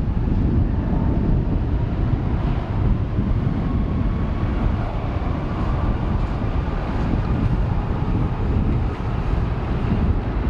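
Airbus A330-243F freighter's Rolls-Royce Trent 700 jet engines, a low, steady rumble with a faint whine in it, mixed with wind buffeting the microphone.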